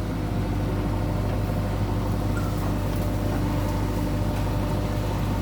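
JCB 3DX backhoe loader's diesel engine running steadily, a constant low hum with no change in pace.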